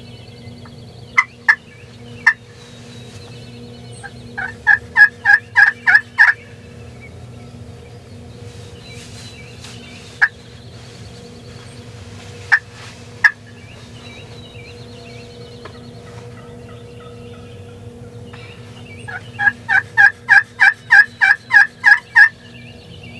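Turkey yelping: a few single yelps, a run of about eight evenly spaced yelps, a few more single notes, then a longer run of about eleven yelps near the end. Faint songbirds chatter in the background.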